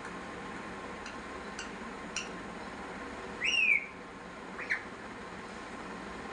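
Small green pet parakeet calling from its cage: a couple of short chirps, then one louder rising-and-falling call about three and a half seconds in, and a shorter falling call about a second later.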